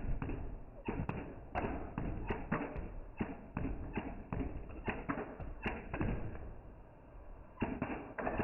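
Plastic Lego bricks being handled and pressed together: an irregular run of short clicks and clacks, several a second, with a lull of about a second near the end before a few more.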